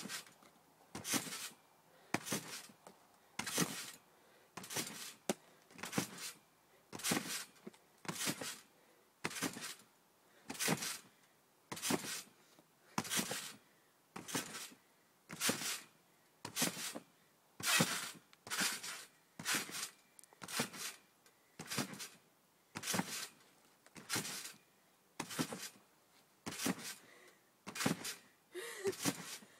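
Garden trampoline being bounced on: a short noisy swish from the mat and springs on each landing, repeating in an even rhythm of about one bounce a second.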